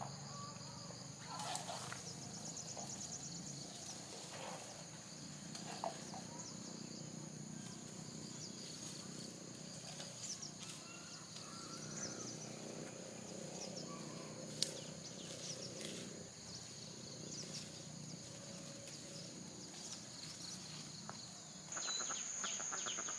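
Outdoor rural ambience: a steady high-pitched insect drone with scattered bird chirps and a few light clicks. The insect drone grows louder near the end.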